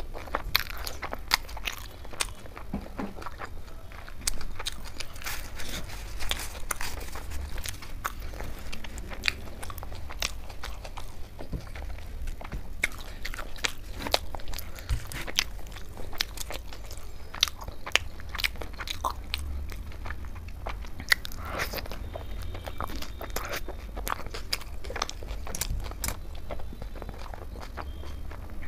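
Close-miked chewing and biting of soft roti dipped in dal makhani: frequent irregular wet mouth clicks, with crisp crunches here and there.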